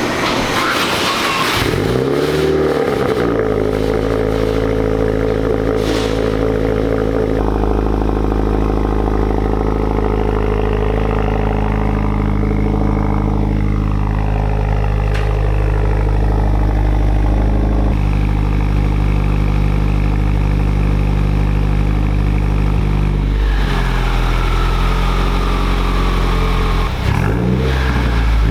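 A 2018 Subaru WRX's turbocharged flat-four, breathing through an Invidia Q300 cat-back exhaust, runs up and settles about two seconds in. It then idles steadily, and the revs rise and fall again with throttle blips near the end.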